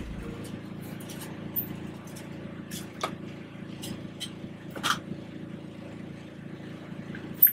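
A steady low machine hum with several fixed pitches, with a few scattered light clicks and knocks and a sharp clack near the end.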